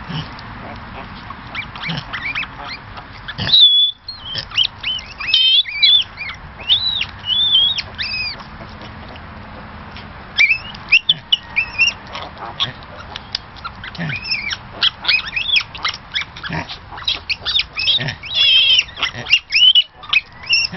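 Potbelly piglets squealing in many short, high squeaks while they jostle for teats at a nursing sow.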